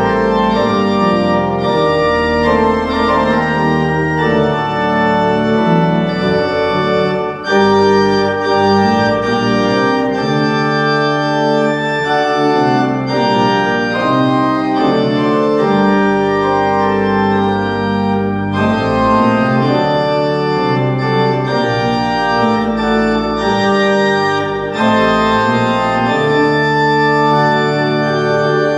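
Pipe organ playing alone: full sustained chords over deep pedal bass notes, with a brief break about seven seconds in.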